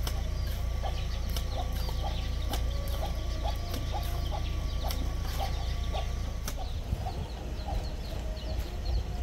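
Chickens clucking in a quick run of short, repeated calls, with higher chirping over them and a steady low rumble underneath.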